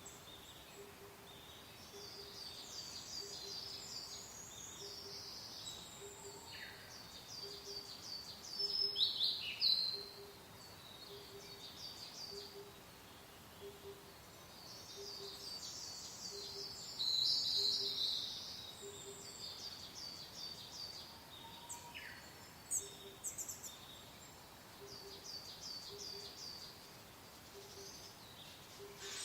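Songbirds singing in clusters of rapid high chirps, loudest about a third of the way in and again past the middle, over a soft steady wind hiss. A faint low tone pulses underneath about twice a second.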